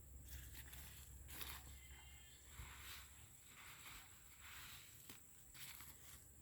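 Near silence, with faint soft rustles about once or twice a second.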